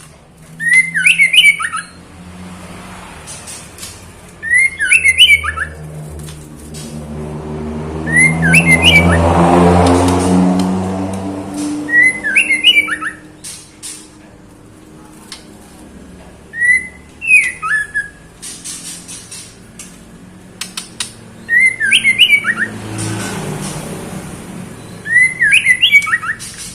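Female white-rumped shama repeating a short, sharp call phrase seven times, a few seconds apart: a female in breeding condition calling for a male. A low droning hum swells and fades around the middle, and again briefly near the end.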